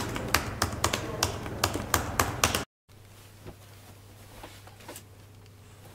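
Fingers typing on a slim computer keyboard, a quick run of keystroke clicks that cuts off suddenly about two and a half seconds in. After the cut there is only a faint, steady low hum of room tone with a few soft ticks.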